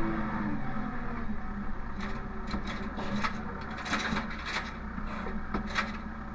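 Engine running low and steady under a run of sharp creaks and rubbing scrapes from about two seconds in: hay bales rubbing as they are gripped and loaded with a bale squeeze.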